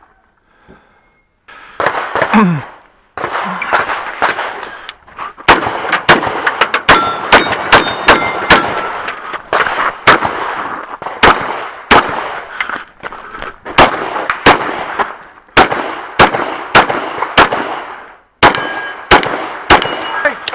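Centerfire handgun fired many times in quick strings with short pauses between, beginning a couple of seconds in, with metallic clangs and pings ringing after some shots.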